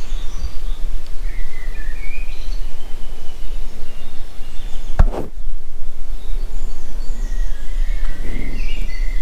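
Outdoor ambience: a steady low rumble on the microphone, with birds chirping now and then and a single sharp knock about five seconds in.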